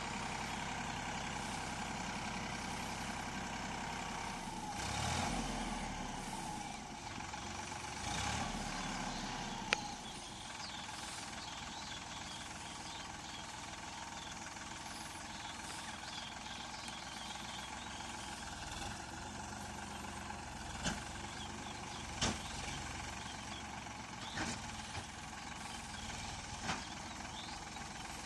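Heavy diesel engine of earthmoving machinery running steadily, swelling louder twice in the first ten seconds, with a few sharp metallic clanks later on.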